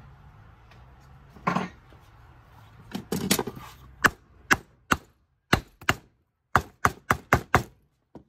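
Hammer tapping on a metal socket set on a wooden block over a blower motor shaft, about ten sharp taps in quick, uneven succession in the second half, after a few handling knocks. The taps are meant to work loose the fan flange stuck on the blower motor.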